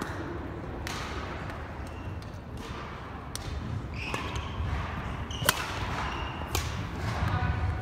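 Badminton rally: sharp cracks of rackets striking the shuttlecock every second or two, the loudest about five and a half seconds in, with brief squeaks of court shoes on the wooden floor, echoing in a large sports hall.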